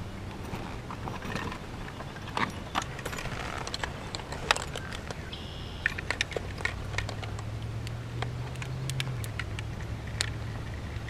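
Small plastic clicks and snaps of a handheld digital fish scale being handled as its corroded battery is swapped for a new one. There is a brief high chirp about halfway through.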